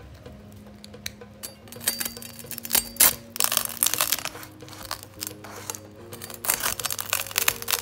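Soft background music with a steady melody, over irregular sharp crackling and crinkling clicks; the loudest crack comes about three seconds in.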